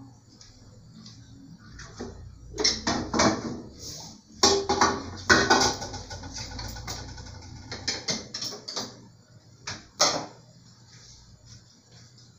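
Off-camera clatter of things being handled: a string of knocks, scrapes and rustles with a few sharp knocks, busiest a few seconds in and ending with one sharp knock about ten seconds in.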